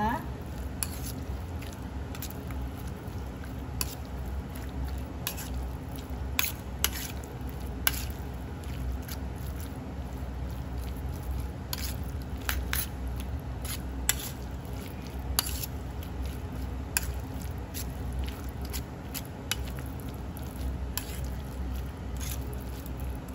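Metal spoon stirring raw pork pieces in a stainless steel bowl: wet squelching of the meat with scattered sharp clicks of the spoon against the bowl, over a steady low hum.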